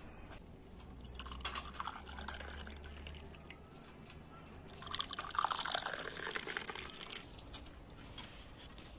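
Brewed herbal tea poured from a glass teapot into pear-shaped armudu tea glasses, trickling and splashing as the glasses fill, in two pours with the second louder.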